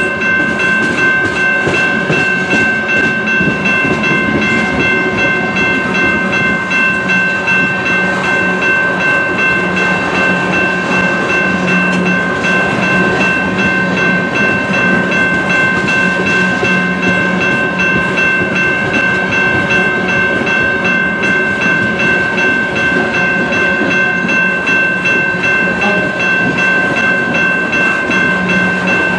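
A CN mixed freight train's cars, open hoppers then tank cars, rolling steadily past with a rhythmic clatter from the wheels. Several steady high-pitched tones ring over the rumble the whole time.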